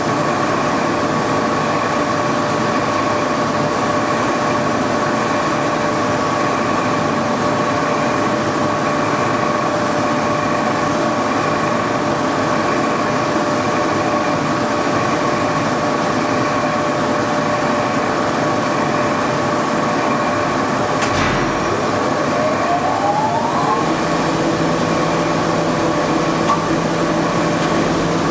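Gas cylinder shot blasting machine running: a loud, steady rush of abrasive shot being thrown at the cylinders inside the blast chamber, with a steady motor whine. About 21 seconds in there is a sharp knock, then a rising whine as a motor speeds up, and from about 24 seconds a lower hum joins in.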